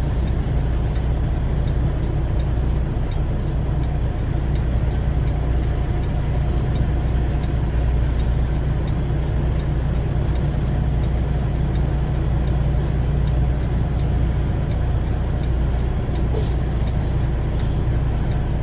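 Semi truck's diesel engine running steadily, a low even rumble.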